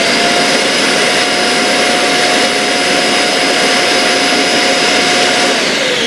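iRobot Roomba j7+ auto-empty station's suction motor running loud and steady with a high whine, pulling the dirt out of the docked robot's bin into the station. About five and a half seconds in, the whine starts falling as the motor spins down.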